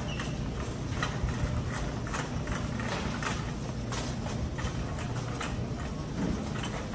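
Shopping cart rolling through a store, its wheels and wire basket rattling with many irregular clicks and clacks over a steady low hum.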